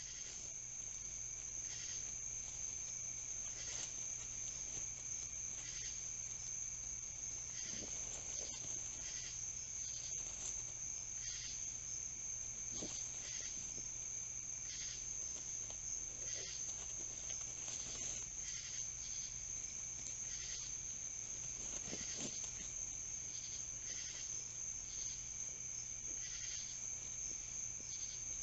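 Night chorus of crickets trilling steadily in a high, unbroken band, with louder insect calls pulsing about every two seconds. A few brief rustles of dry leaves come from raccoons foraging on the leaf litter.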